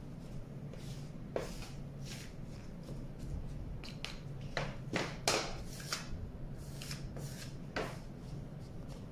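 A scraper and hands working rice flour and white glue into cold porcelain clay in a stainless steel bowl: irregular scraping and rubbing strokes against the metal. A low steady hum runs underneath.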